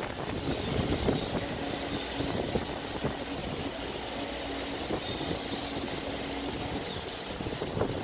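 Doosan DX140W wheeled excavator's diesel engine running steadily while the two-piece boom and arm move together. A faint steady hydraulic whine comes in about a second and a half in and fades out near six and a half seconds.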